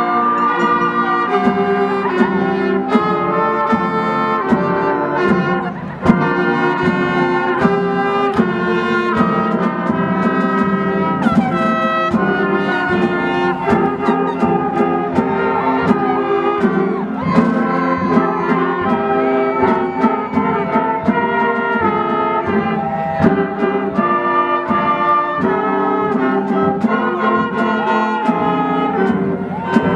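High school band playing, brass to the fore with trumpets and trombones, in full sustained chords, with a short dip between phrases about six seconds in.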